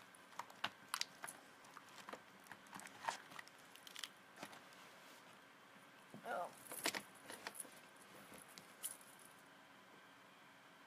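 Felt-tip markers clicking and clinking against one another as they are picked up and gathered by hand: faint, irregular light clicks that stop about nine seconds in.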